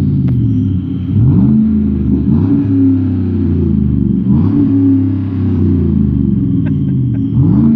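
2016 GMC Sierra pickup's engine through a Borla Touring exhaust, idling with a low rumble and blipped four times, each rev rising quickly and falling back to idle.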